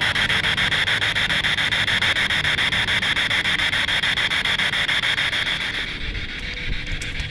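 P-SB7 Spirit Box radio sweeping through stations, giving a steady hiss of static chopped into rapid, even pulses as it skips from frequency to frequency. It cuts off about six seconds in, leaving fainter noise and a few clicks.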